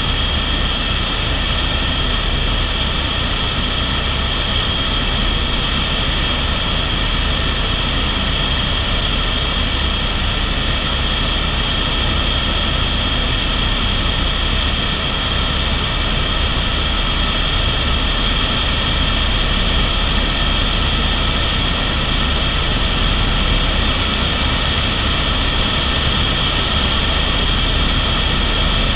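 Steady cabin noise of an Airbus AS350 (H125) helicopter in cruise flight, heard from inside the cockpit: the single turboshaft engine's high whine over low main-rotor noise, unchanging throughout.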